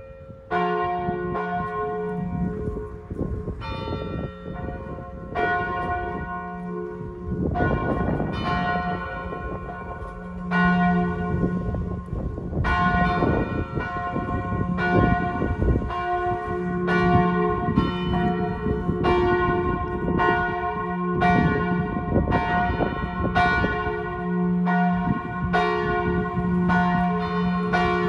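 Church bells ringing the death knell (glas): bell 1 swinging in full peal with single strokes tolled on bell 3, telling of a death and a coming funeral. The strokes ring on with long tails, about one every second or two, coming closer together from about twelve seconds in.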